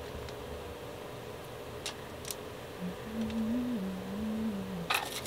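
Pizza toppings going on in a small galley over a steady low hum: a few light clicks of jars and utensils, and a low wavering tone through the second half. Near the end a seasoning jar starts rattling as it is shaken over a pizza.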